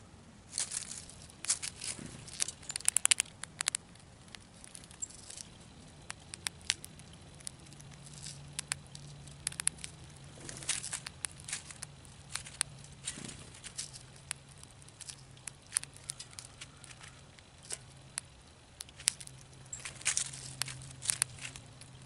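Gray squirrel cracking and chewing birdseed and nosing through loose seed in a plastic tray: irregular small crackles and clicks that come in clusters a few seconds apart.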